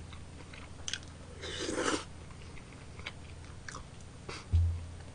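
A person eating tteokbokki rice cakes: quiet chewing and mouth sounds with a few small clicks and a short breathy hiss about one and a half seconds in, and a low thump near the end.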